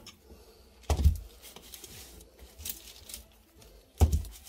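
Two dull thumps, about a second in and near the end. The second is a Philips clothes iron being set down flat on baking paper, with faint rustling of the paper between the thumps.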